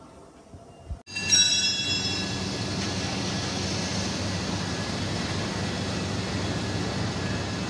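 Steady, loud machine noise with a low hum, starting suddenly about a second in and running on evenly after a quieter stretch.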